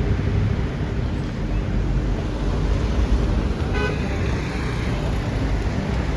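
Steady low rumble of cars, with a short car horn toot nearly four seconds in.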